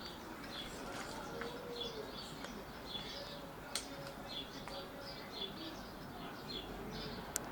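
Small birds chirping over and over, with two sharp clicks, one about halfway through and one near the end.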